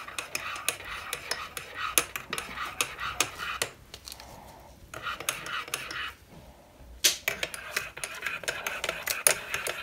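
A metal teaspoon stirring cappuccino in a mug, with rapid clinks of the spoon against the mug's sides. It comes in three spells with two short pauses between.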